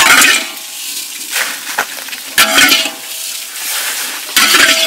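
Metal spatula scraping and stirring raw rice grains as they dry-roast in a metal wok, toasting them for roasted rice powder. The grains hiss and rattle against the pan in a few loud sweeps about two seconds apart, with softer scraping between.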